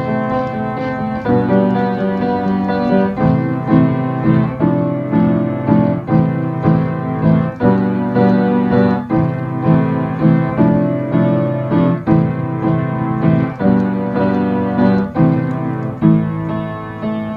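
Piano playing a self-composed tune: low sustained chords under a higher melody, with new notes struck in a steady, unhurried rhythm about every half second to a second.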